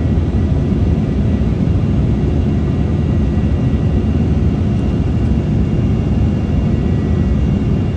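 Steady roar of an Embraer 190's twin GE CF34-10E turbofans and rushing air, heard inside the passenger cabin, with a faint high steady whine over the low rumble.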